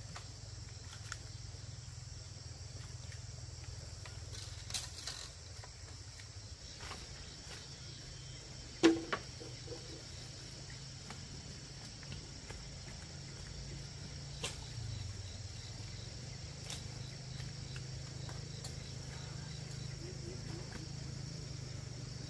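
Steady insect chorus, high and unbroken, with scattered faint clicks and one sharp knock about nine seconds in.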